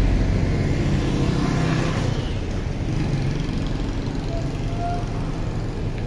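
Steady city traffic noise: an even low rumble of vehicles with no single car standing out.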